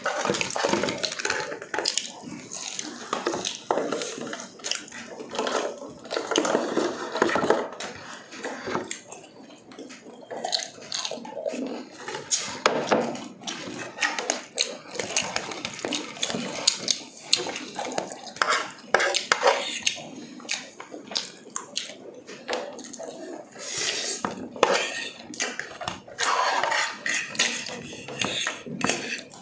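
Close-miked eating: chewing fried chicken and spaghetti, with scattered clicks and clinks of a fork against plates and plastic sauce cups.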